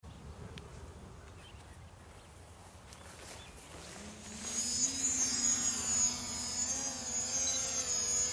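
Faint outdoor background, then about four seconds in a DJI Mavic Pro quadcopter's propellers spin up and it lifts off carrying a slung payload: a steady multi-tone whine that rises a little in pitch, grows louder and wavers as it climbs.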